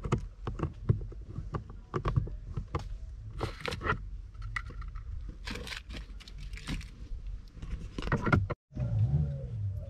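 Irregular clicks, knocks and rustling from hands handling parts of a car's interior around the centre console and gear lever.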